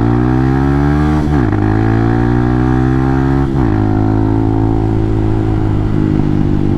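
Hawk 250's single-cylinder engine running through an aftermarket exhaust while accelerating. The pitch climbs and drops suddenly with an upshift about a second in, climbs again and drops with a second upshift about three and a half seconds in, then holds steady at cruising speed.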